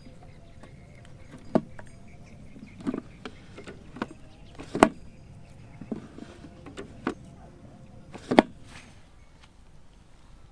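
Irregular clicks and knocks from hands handling and fitting together small parts, about seven in all; the loudest come about halfway through and again near the end.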